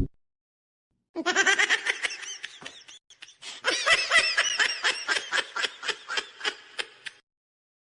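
A laughter sound effect: a person laughing in quick, high-pitched 'ha-ha' pulses, about four or five a second. The laughter starts about a second in, breaks off briefly, then carries on in a second longer bout and stops shortly before the end.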